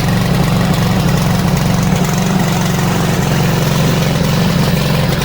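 Small gasoline engine of a remote-control crawler mower running steadily, just after being started.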